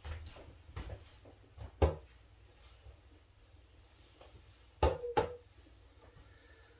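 Wooden frame of a stretched canvas knocking against the table as the canvas is tipped: one sharp knock about two seconds in, and two more close together about five seconds in, with a few lighter taps between them.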